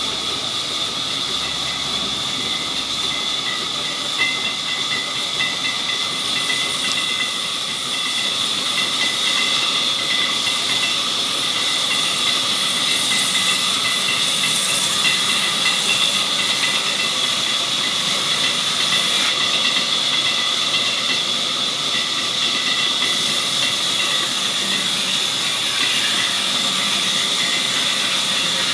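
Sawmill saw cutting through a log: a steady high-pitched whine over hiss, growing a little louder about eight seconds in.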